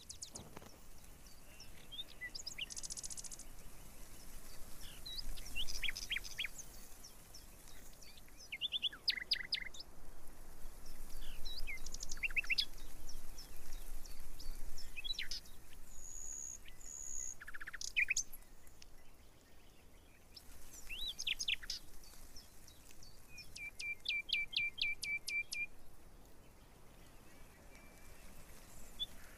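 Small birds chirping and calling: scattered short high chirps throughout, two brief held whistles midway and a fast trill of about a dozen notes near the end, over faint outdoor background noise.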